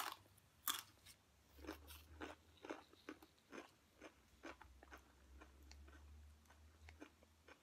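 Close-up chewing of crunchy food: a sharp bite right at the start and another just under a second in, then a run of softer, irregular crunches.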